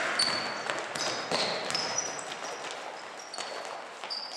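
Basketball game on a sports-hall court: sneakers squeaking on the floor many times in short high squeals, with a few knocks of the ball bouncing over the hall's echoing background noise.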